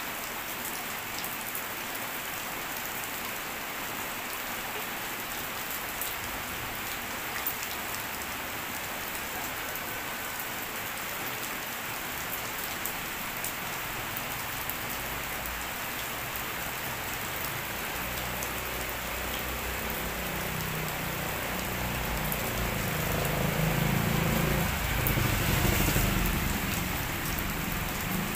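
Rain falling steadily, an even hiss of drops. In the second half a low rumble builds, loudest a few seconds before the end, then eases off.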